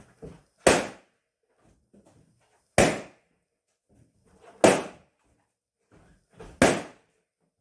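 Latex party balloons popping, four sharp bangs about two seconds apart, with faint rustling of balloons being handled between them.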